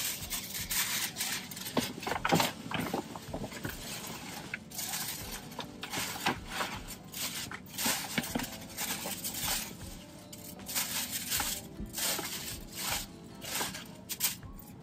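Tissue paper rustling and crinkling in irregular bursts as it is handled and pushed into a paper gift bag.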